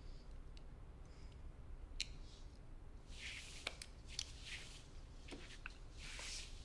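Faint rustling of clothes and a few small clicks as seated people shift on a sofa, over quiet room tone.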